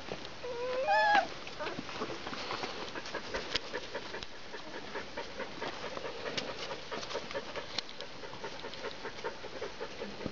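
Border collie puppy giving one short rising whine about a second in, followed by a run of small clicks and scuffs as the puppies move about.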